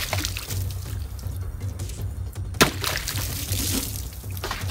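Water splashing and spilling across a wooden table from a water-filled plastic jug slashed by a bush sword, with a second sharp hit of the blade about two and a half seconds in, followed by more splashing. Background music runs underneath.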